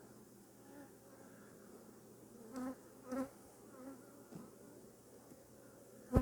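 Honeybees buzzing around an open hive, a steady hum with two bees flying close past about two and a half and three seconds in. A sharp knock at the very end.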